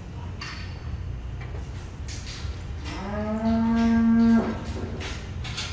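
A livestock animal calls once about three seconds in: a long, steady, pitched call lasting over a second, over a steady low hum with scattered short rustles.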